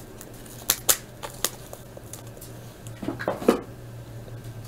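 Scattered light clicks and taps, a few single ones in the first second and a half and a short cluster about three seconds in, over a steady low hum.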